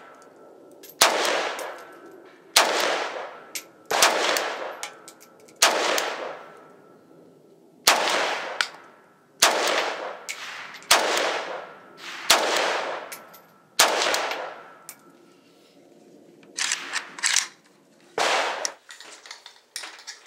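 Norinco MAK-90 semi-automatic 7.62x39mm rifle fired one shot at a time: nine sharp shots about a second and a half to two seconds apart, each trailing off in a long echo. Near the end come a few lighter knocks and one more crack.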